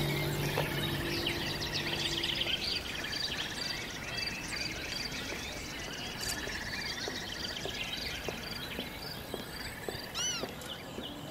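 Birdsong: many small chirps and trills, with a low steady hum fading out about two seconds in and a single louder arched call near the end.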